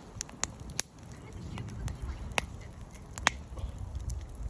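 Wood fire crackling in a Coleman Fire Disc fire pit: a handful of sharp, irregular pops, the loudest about two and a half and three seconds in, over a low uneven rumble.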